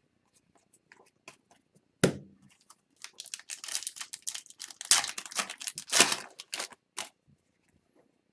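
A hockey card pack wrapper being torn open and crinkled by hand: a sharp snap about two seconds in, then a few seconds of crackling tearing.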